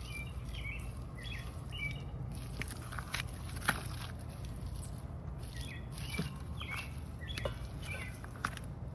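A small bird chirping in short bursts of notes, a few clusters near the start and again in the second half, over a steady low rumble and scattered faint clicks.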